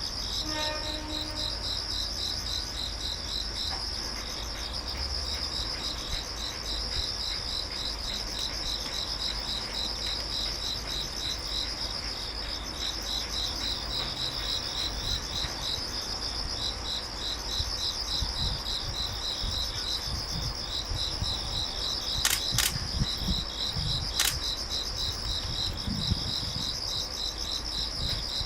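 Insects singing steadily in a rapid pulsing rhythm, with a low rumble underneath. Two sharp clicks come about two seconds apart after the middle.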